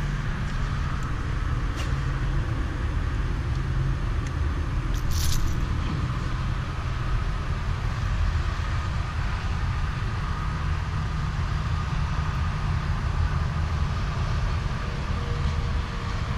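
Steady low outdoor rumble of background noise, with a brief sharp rattle about five seconds in.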